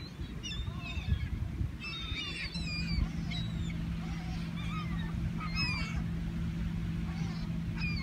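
A flock of gulls calling, many short curved cries overlapping and scattered throughout. Underneath is a low rumble, and a steady low hum joins about two and a half seconds in.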